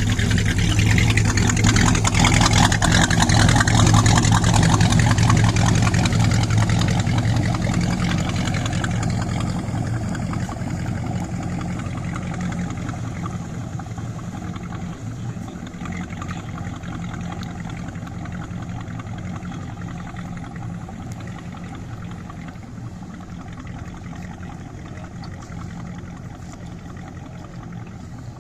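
Chevy 283 small-block V8 inboard with a Crusader marine conversion, in a 1962 Century Resorter, running steadily. It is loudest a few seconds in, then grows gradually fainter.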